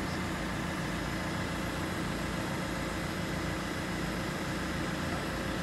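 Telescopic handler's engine running steadily.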